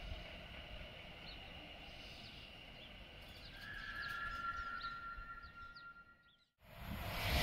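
Faint low rumble of a Class 710 electric train pulling away, with a steady two-note high whine for a few seconds after the middle. After a brief dropout, the rushing noise of another electric train approaching at speed swells quickly near the end.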